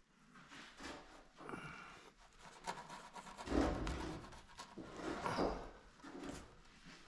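A rough fieldstone being pressed and worked by hand into wet mortar: irregular scraping and rubbing of stone against mortar, with two louder stretches about three and a half and five seconds in.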